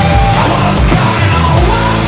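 Loud rock music soundtrack.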